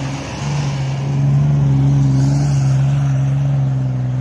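Toyota FJ Cruiser's 4.0-litre V6 held at high revs at a steady pitch as it drives through deep snow with its wheels spinning and throwing snow.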